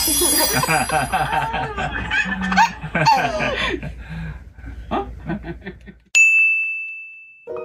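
A toddler and adults laughing together, the toddler squealing with delight. About six seconds in, a single bright ding sounds and rings out, fading over a second or so.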